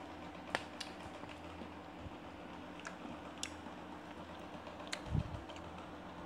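A few sharp, isolated clicks, with a low bump about five seconds in, over a steady low hum: mouth and handling noises as a drink from a plastic pouch is tasted and the pouch is moved about.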